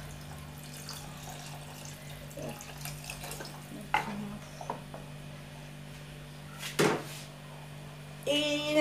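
Water poured from a bowl into a saucepan of meat stew, then a wooden spoon stirring it and knocking against the pot a few times, sharpest about seven seconds in. A woman's voice starts singing near the end.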